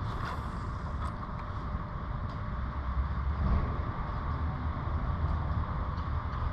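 Kayak moving on the water: a steady low rumble with a hiss over it, from water along the hull and wind on the camera, with a few faint ticks.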